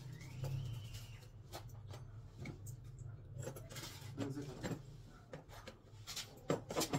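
Unpacking noise from a hard plastic tool case: scattered clicks, light knocks and plastic rustling as the accessories and cable of an electric demolition hammer are handled, over a low steady hum.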